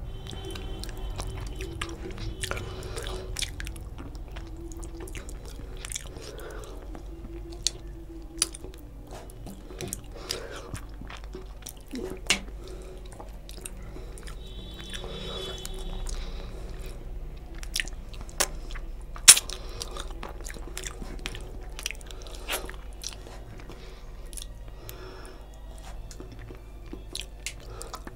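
Close-miked mouth sounds of eating rice and fish curry by hand: chewing with wet smacks and many sharp clicks, the loudest a little past the middle.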